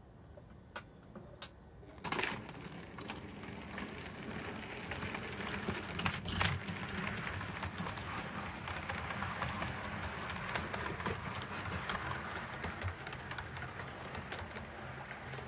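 Model train running on the layout's track: a model ex-LMS Jubilee steam locomotive hauling coaches, with rapid irregular clicking of wheels over rail joints over a steady low motor hum. It grows louder about two seconds in, with a few sharper clacks around six seconds, and cuts off suddenly at the end.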